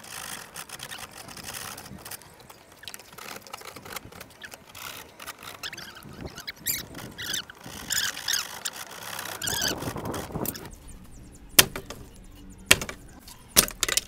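Hand work on a wooden plank with a hand tool: irregular scraping and rubbing, with some high squeaks midway. Then three sharp knocks about a second apart near the end.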